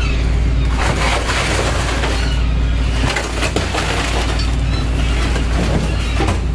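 Steady low drone of a fishing boat's machinery under repeated clattering and crunching as cod are moved about and slide through a hatch in the fish hold.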